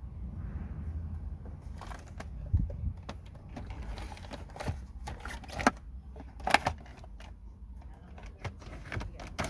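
Irregular clicks and knocks of hands handling car light fittings and parts while changing bulbs, over a low steady hum.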